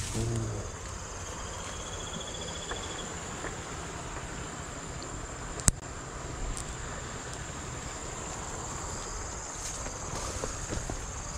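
Insects trilling steadily in a high, even drone, with a short buzzy trill about two seconds in. A single sharp click sounds a little past halfway, over low rustling and handling noise.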